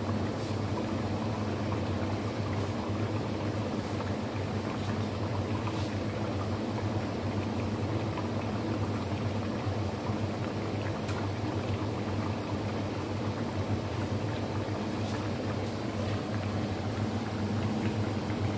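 Homemade potato fries deep-frying in hot oil: a steady bubbling sizzle, with a steady low hum underneath.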